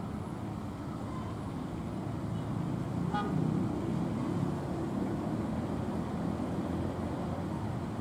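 A steady low rumble of diesel locomotive engine and road traffic, swelling slightly partway through, with one short horn toot about three seconds in.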